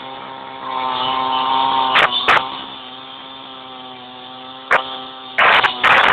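A vehicle engine running at a steady speed, swelling for a second or so early on, with several sharp cracks: two about two seconds in, one near five seconds, and a quick cluster near the end.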